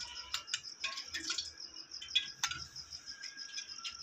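Light clicks and taps of a spoon and fingers against a glass plate as milk is worked into crumbled bread by hand, over a steady high pulsing chirp in the background.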